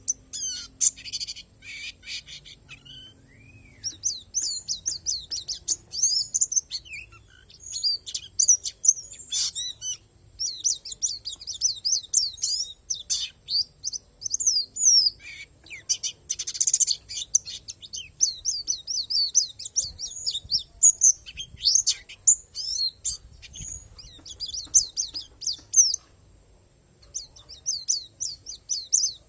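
Pleci (white-eye) singing a fast, high twittering song of short chirps in long runs, with brief pauses about three seconds in and near the end.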